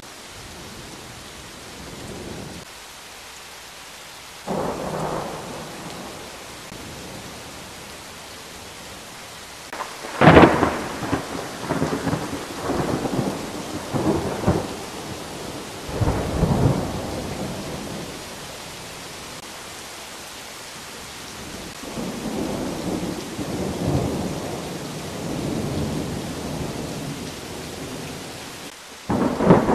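Thunderstorm: steady rain with rolling thunder. A sharp, close thunderclap about ten seconds in is followed by several seconds of loud rumbling, with a shorter rumble before it and fainter rumbling later on.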